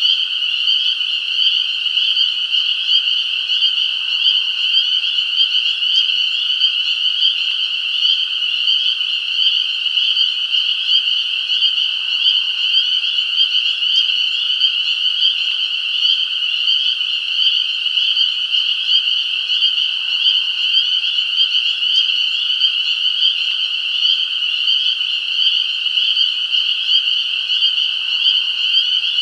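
A dense chorus of many frogs calling at once, a steady high-pitched mass of calls with no pauses.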